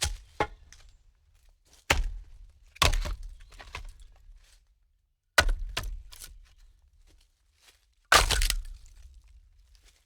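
Firewood logs being stacked: a hard wooden knock as each log is set on the pile, followed by the rattle of wood settling. This happens about five times, a second or more apart, and the last is a longer clatter of several logs.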